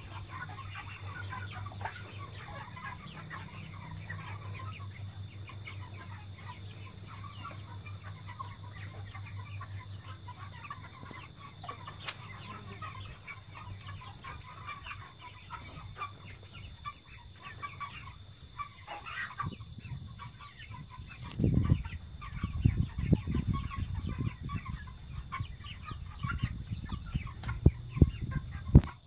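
A flock of young broiler chickens cheeping and clucking continuously, many short chirps overlapping. A steady low engine hum, from the tractor idling beside the pen, fades after the first half, and from about three-quarters in loud irregular low rumbles and thumps come in.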